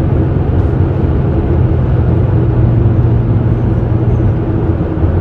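Steady road and engine noise of a minivan driving, a constant low hum with no change.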